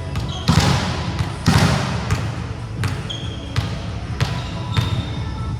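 Basketballs bouncing on a hardwood court in uneven repeated thuds, with short high sneaker squeaks, over a murmur of voices. There are two brief rushes of noise about half a second and a second and a half in.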